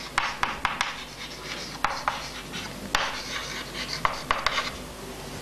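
Chalk writing on a chalkboard: a quick irregular run of scratchy strokes and sharp little taps as letters are written.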